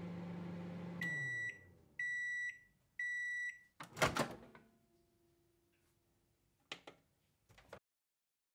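Microwave oven running with a low hum that winds down as the cycle ends, then three beeps about a second apart signalling that it has finished. About four seconds in the door opens with a loud clunk, followed by a faint low tone and a few small clicks.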